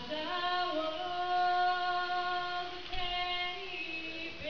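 A woman singing unaccompanied into a microphone. She holds one long note through most of the first three seconds, then a second note that falls in pitch near the end.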